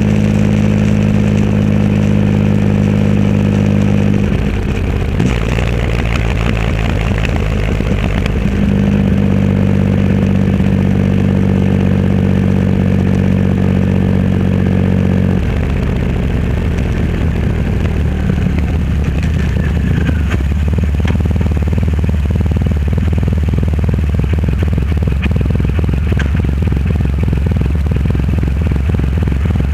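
Triumph Rocket 3 Roadster's inline-three engine running through a custom exhaust while riding. Its steady note drops about four seconds in, comes back up near eight seconds, and settles to a lower steady note about halfway through.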